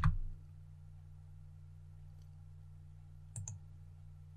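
A computer mouse button clicks twice in quick succession about three and a half seconds in, over a steady low electrical hum.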